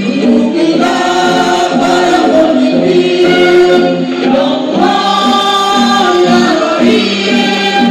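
Men's choir singing a kasidah, an Indonesian Islamic devotional song.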